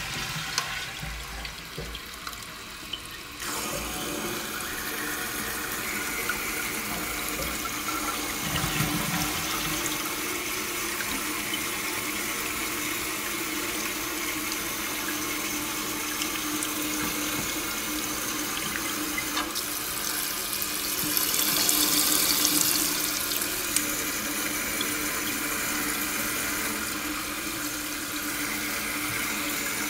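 Toilet tank refilling through a new Korky anti-siphon fill valve after a flush: a steady hiss of water running into the tank, with a faint steady hum. The hiss jumps up a few seconds in and grows louder for a couple of seconds about two-thirds of the way through.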